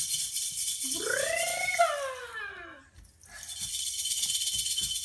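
A toy rattle shaken in two bouts, with a short break about three seconds in. Over the first bout, a voice gives one long call that rises and then falls in pitch.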